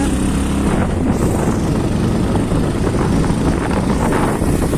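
Vehicle running steadily on a rough off-road track, with wind buffeting the microphone.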